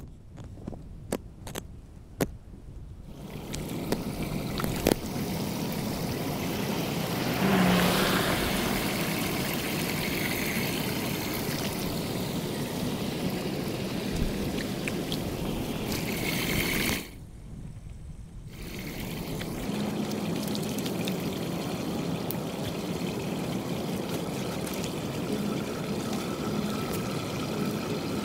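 Floodwater trickling and pouring into a street storm drain, a steady wash of running water that briefly drops away about two-thirds of the way through.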